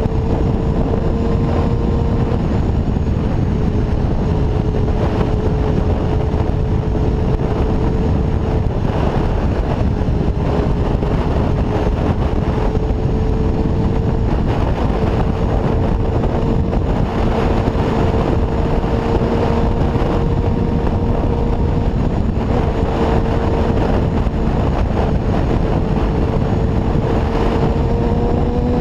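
1992 Honda CBR250RR's 250 cc inline-four engine, fitted with a Musarri aftermarket exhaust, running at near-steady revs while the bike rides along, under heavy wind rumble on the microphone. The revs climb near the end.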